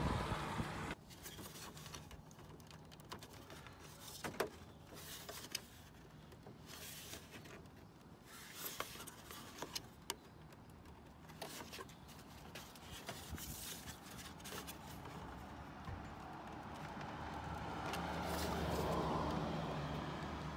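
Sharp plastic clicks and light knocks, scattered irregularly, as hands pry at the chrome bezel's clips on a Toyota Tacoma grille. Near the end a vehicle engine hum swells up underneath.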